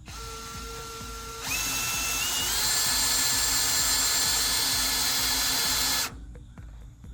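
Power drill driving a screw: it runs slowly for about a second and a half, then speeds up louder and higher and holds steady before stopping suddenly about six seconds in.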